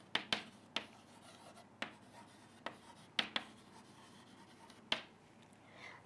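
Chalk writing on a chalkboard: a string of sharp, irregularly spaced taps and short scratches as the words are written.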